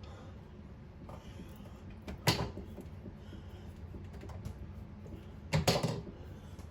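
Sink drain parts being handled and fitted under a bathroom sink: one sharp click about two seconds in and a quick run of knocks near the end.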